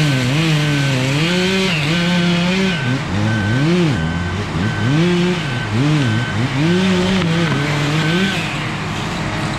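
An engine revving up and down again and again, its pitch dipping under load and climbing back about once a second. A reversing alarm beeps about once a second throughout.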